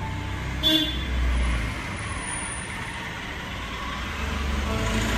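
Road traffic passing: a steady rumbling noise that slowly grows louder toward the end.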